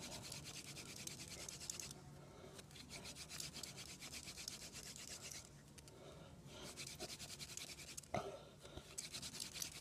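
Wooden spindle of a friction-fire hand drill twirled between the palms in a hearth board: rapid, faint wood-on-wood rasping in several spells broken by short pauses.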